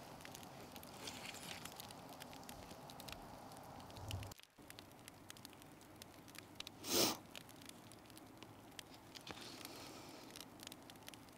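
Campfire crackling with many small scattered pops, and one short, loud rush of noise about two-thirds of the way through.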